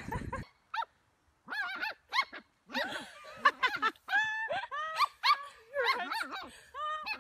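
A small dog giving a rapid series of short, high-pitched yips and whines. A brief burst of rustling noise comes right at the start.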